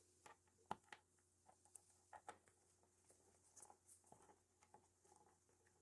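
Faint, scattered small clicks: screws being set and driven into a laptop's plastic bottom cover.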